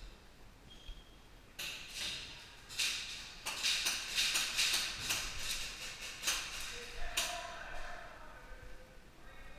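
Airsoft gunfire in an indoor field: a rapid run of sharp cracks and knocks, starting about one and a half seconds in and lasting several seconds, with pellets knocking against the plywood walls.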